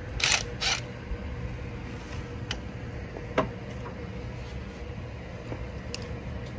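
Hand wrench work on engine mount nuts and bolts: two short bursts of ratchet-like metal clicking right at the start, then a few single clicks and knocks of tool on metal, over a faint steady hum.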